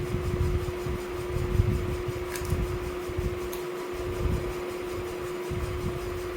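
Electric fan running with a steady hum, with irregular low rumbling and two faint clicks.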